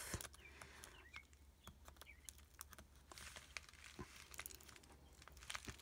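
Near silence, with faint scattered ticks and soft crinkles from fingers peeling the backing off a Velcro dot and handling a clear plastic page-protector envelope filled with sequins.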